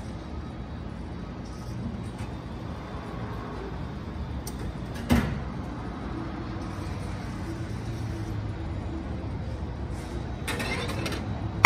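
Retro noodle vending machine running a cooking cycle with a steady low hum that grows a little stronger after about six seconds. A single short clunk with a falling swish comes about five seconds in, and a loud rising whoosh comes right at the end.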